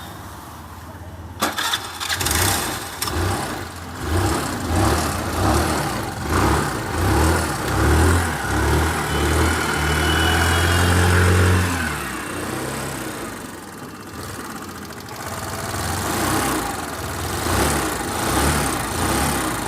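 Hero Duet scooter engine being started and run in uneven bursts, rising and falling about once a second, with a steadier run for a couple of seconds midway. This follows the retightening of a loose cooling-fan nut that had been causing a loud noise.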